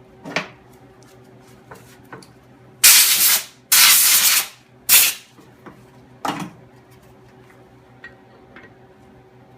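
Three short hissing spray blasts, the first two about half a second to a second long and the third brief, among light clicks and knocks.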